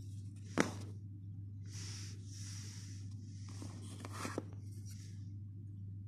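Hands handling a Zippo lighter and its plastic presentation box: a sharp click about half a second in, a couple of seconds of rustling, then a few small clicks a little after four seconds. A steady low hum runs underneath.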